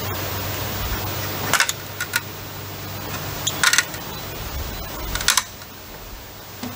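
A flat metal bar knocking and prying in a saw-cut notch in a wooden 4x4 post, with a handful of sharp, separate knocks and clinks a second or two apart, as the waste piece is worked loose.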